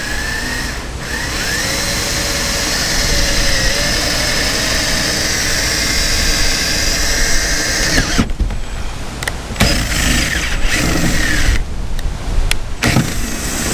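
Cordless drill boring a hole through a boat's fiberglass cabin roof, running steadily for about eight seconds, then stopping and starting in several short bursts.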